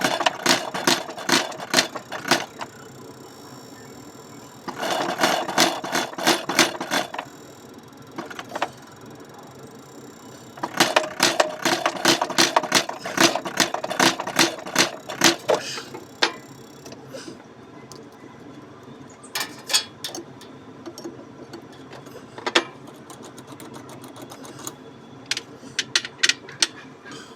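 Rapid mechanical clicking in three bursts of several seconds each, about five clicks a second, then scattered single clicks near the end.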